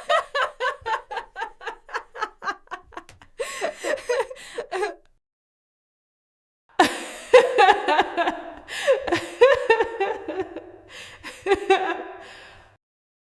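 A woman laughing in two bouts: a quick run of short, evenly spaced "ha" pulses for about five seconds, then, after a silent gap of about two seconds, a longer, fuller burst of laughter that trails off.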